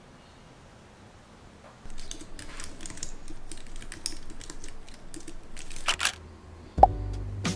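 Fingers typing on a low-profile Apple keyboard: a quick, irregular run of light key clicks starting about two seconds in and stopping about six seconds in. Music comes in near the end.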